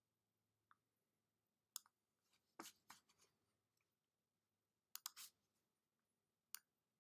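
Near silence broken by a few faint computer mouse clicks scattered through it.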